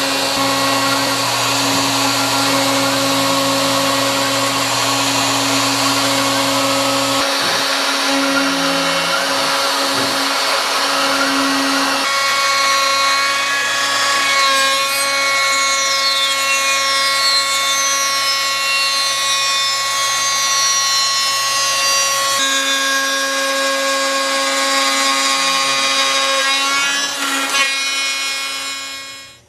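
CNC router spindle whining at high speed while its bit cuts into a Spanish cedar board, a steady machine whine over the hiss of wood being cut. The pitch changes abruptly a few times, and the sound fades out near the end.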